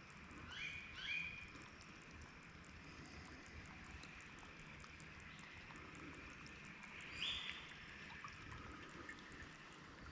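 Faint creek ambience: a shallow stream trickling steadily. A few short rising chirps come through near the start and again about seven seconds in.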